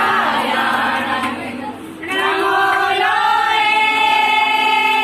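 A group of women singing a Marwari folk wedding song together. The singing dips briefly about two seconds in, then the voices settle onto one long held note in the second half.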